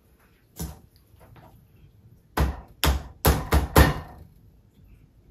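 Kitchen knife chopping raw chicken on a cutting board: one knock about half a second in, then a quick run of about five sharp knocks about two and a half seconds in.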